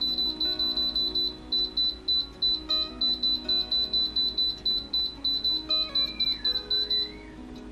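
Background music with a rapid high-pitched beeping, about four short beeps a second, that stops near the end.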